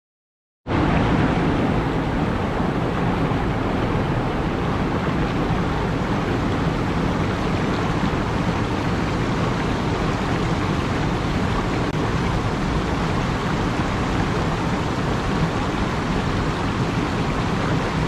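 Rushing water: a steady, loud roar of falling and flowing water that starts abruptly a little under a second in.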